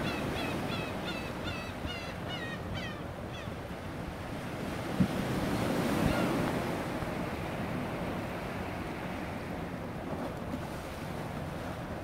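Sea waves washing and breaking against shore rocks, with wind on the microphone. During the first three seconds a gull gives a quick run of short calls, about three a second, and there is one sharp knock about five seconds in.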